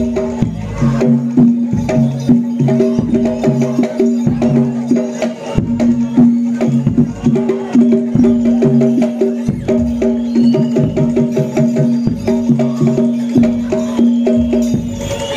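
Live jaranan gamelan music: a fast, busy pattern of struck pitched notes and hand-drum strokes over a steady held low tone.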